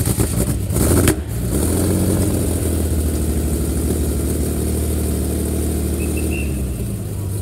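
Ferrari 512 BB's flat-twelve engine starting: it catches with a rough burst and a sharp blip about a second in, then settles into a steady idle.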